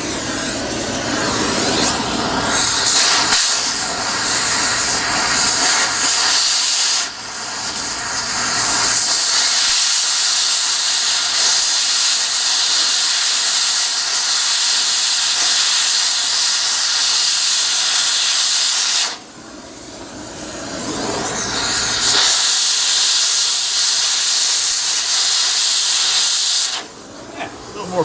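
Oxy-acetylene cutting torch hissing loudly as it cuts out an exhaust-manifold bolt. The hiss eases briefly about seven seconds in, drops away for a few seconds around twenty seconds in, then comes back and stops shortly before the end.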